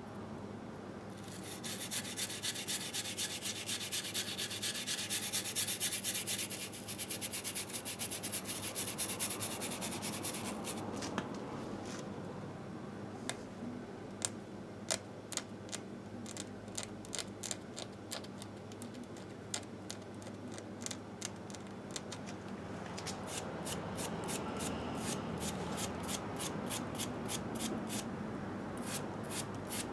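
Grime being scrubbed off the aluminium crankcase of a 1958 Harley-Davidson Sportster engine with a small hand tool. It is a rapid run of rubbing, scraping strokes at first, then slower single strokes, and quick scrubbing again near the end.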